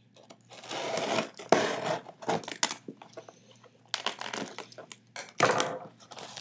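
Cardboard shipping box being slit open with scissors along its packing-tape seam, then the taped flap pulled apart: a series of about five short, scratchy scraping and tearing strokes.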